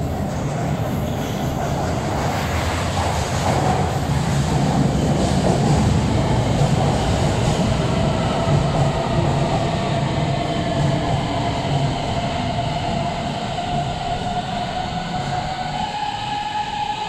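Beijing Subway BDK03 metro train arriving at a platform and braking, with a steady rumble of wheels on the rails. Over it runs the whine of its CRRC Times IGBT VVVF traction inverter, several tones together that rise slowly in pitch through the second half as the train slows.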